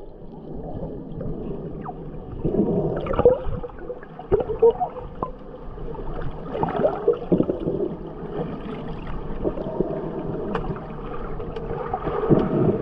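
Muffled underwater sound from a submerged camera: snorkelers moving through the water, with bubbles gurgling and scattered sharp ticks.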